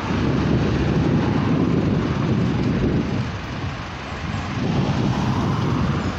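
Cars driving past through a street intersection, with wind rumbling on the microphone. The noise eases briefly around the middle, then builds again.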